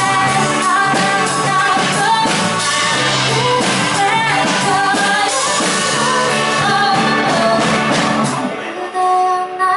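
Live band playing a song with a woman singing over acoustic guitar, electric guitar, bass guitar, keyboard and drums. About eight and a half seconds in the bass and drums drop away, leaving held chords ringing.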